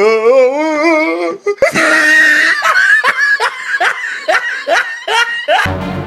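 Loud, hearty laughter: a long wavering laugh, then a run of rhythmic 'ha-ha-ha' strokes, about two or three a second.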